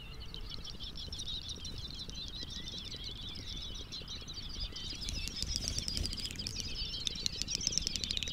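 A dense chorus of high, wavering chirping calls from a mire at night, the strange sound that is the subject of the recording. A rapid clicking joins in about halfway and grows louder toward the end.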